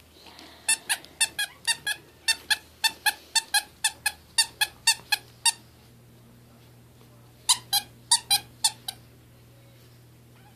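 A squeaky plush dog toy squeezed by hand: a quick run of short, identical squeaks, about four a second for nearly five seconds, then after a pause a shorter burst of five more.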